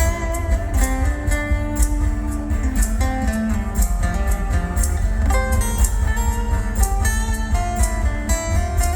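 Live band playing an instrumental passage without vocals: guitar lines over a heavy, steady bass, with regular cymbal strokes.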